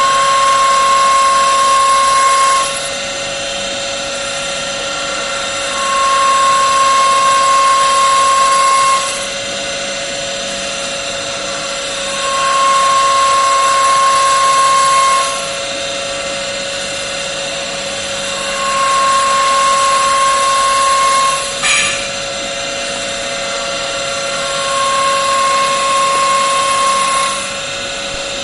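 Automatic CNC wood-turning machine for beads and lamp bases running through repeated work cycles. A steady mechanical hum is broken about every six seconds by a louder spell of about three seconds with a high whine, five times in all. A sharp click comes just after the fourth spell.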